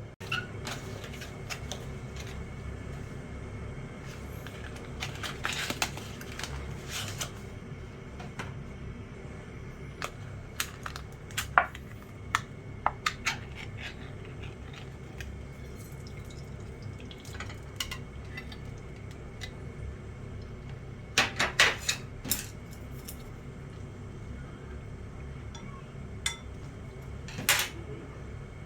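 Scattered light metallic clinks and clicks of a tin can and eating utensils being handled, some in quick clusters, over a steady low hum.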